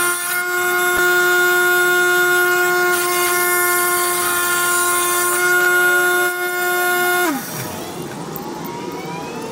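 Wet tile saw running with a steady high whine while a tile is pushed through the blade; a little past seven seconds in the motor is switched off and the whine drops in pitch and fades as the blade spins down.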